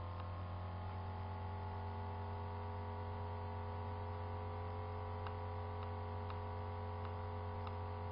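Steady electrical mains hum: a low drone with a stack of steady tones above it. A few faint clicks come in the second half.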